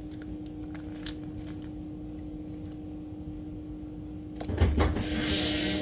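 Kitchen knife cutting a pat of butter on a cutting board: faint small taps, then a cluster of knocks and one heavier thump about four and a half seconds in, followed by a steady rustling hiss. A steady low hum runs underneath.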